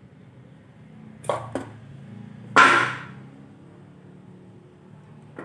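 Small wooden speaker boxes being set down and stacked on top of one another: two light wooden knocks about a second in, then a louder wooden clunk near the middle that rings briefly as a box lands.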